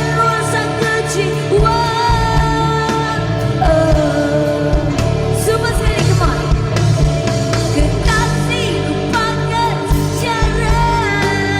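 A Malay rock ballad: a woman singing, with long held and bending notes, over a full band backing.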